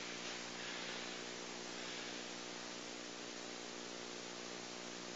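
Steady hiss with a low electrical hum underneath. No kicks striking the pad stand out.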